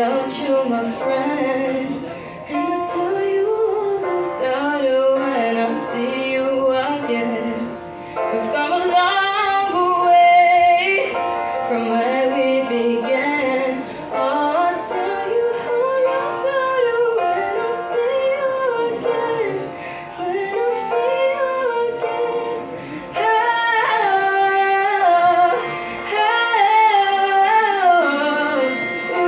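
A young girl's voice singing a melodic song into a handheld microphone, amplified through a loudspeaker, over sustained musical accompaniment.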